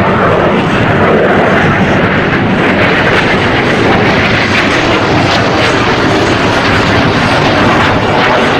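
Canadair CT-114 Tutor jets of the Snowbirds formation flying over, a loud, steady jet-engine noise.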